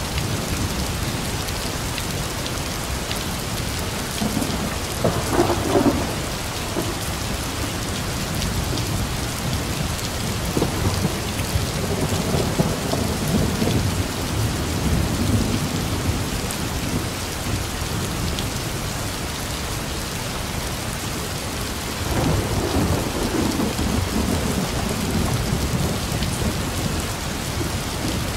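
Steady heavy rain with thunder: a sharper clap about five seconds in, then long low rolling rumbles through the middle and again near the end.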